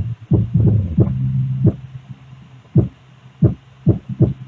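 Bass-heavy music from a repaired speaker's subwoofer: punchy kick thumps and held low bass notes, clean with no rattling or buzzing, the sign that the earlier fault noise is gone.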